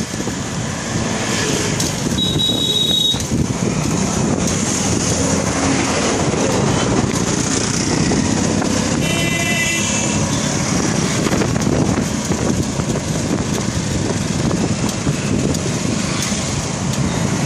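Steady street traffic noise, with a vehicle horn sounding briefly about two seconds in and again about nine seconds in.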